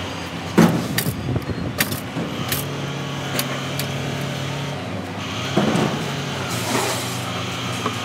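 Scrap sheet metal clanking and scraping as a panel with a mesh grille is worked loose and lifted in a ute's tray. Sharp metallic knocks come in the first few seconds, and a longer scraping rattle follows near the end, over a steady engine hum.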